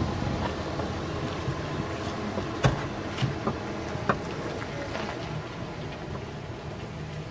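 Steady rushing noise with a few sharp taps scattered through it; the loudest tap comes about two and a half seconds in.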